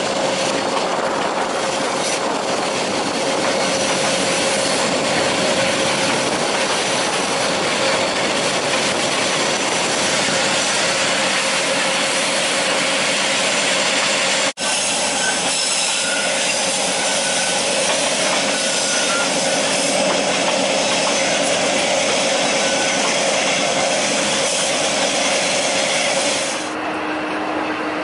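Passenger train carriage running along the track, heard from an open window: a steady loud rush of wheel and rattling-coach noise with a faint constant tone. It drops out for an instant about halfway, and about a second before the end it gives way to a quieter steady hum.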